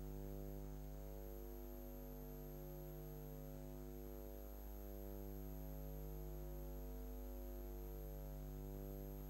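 Faint, steady electrical mains hum, one low tone with a row of higher overtones, unchanging throughout.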